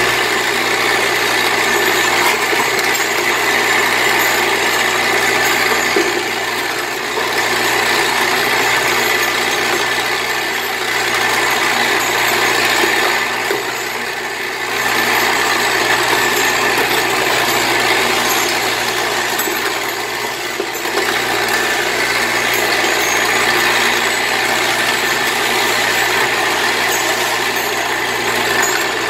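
Vibratory bowl feeder running with a load of metal spikes: a steady low hum from the vibrating drive under a dense, continuous metallic rattle as the spikes chatter against the bowl and its tracks.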